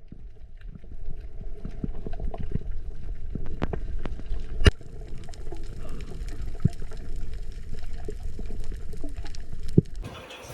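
Muffled underwater sound: a low rumble of moving water with scattered clicks and knocks, and one sharp knock about halfway. Near the end it gives way suddenly to a brighter open-air sound.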